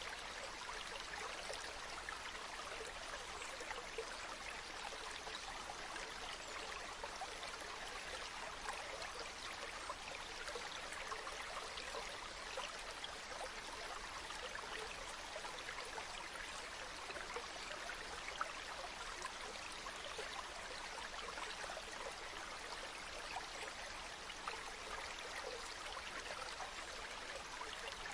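Running water, steady and unchanging, with fine splashing and trickling detail.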